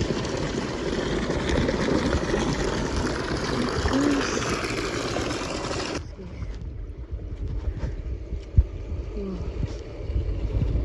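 Wind rumbling on the microphone over the running water of an outdoor hot spring. About six seconds in the high hiss cuts off abruptly, leaving a quieter low rumble, with one sharp knock about two and a half seconds later.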